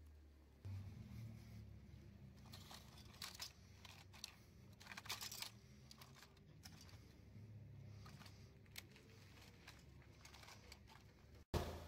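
Faint clicks and crinkling of a crushed plastic toy VW bus being handled, over a low steady hum, with one sharp click near the end.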